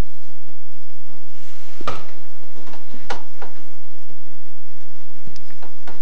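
Footsteps and handling bumps of someone walking through a house with a handheld camcorder: a handful of irregular soft thumps, the strongest about two seconds in, over a steady hiss.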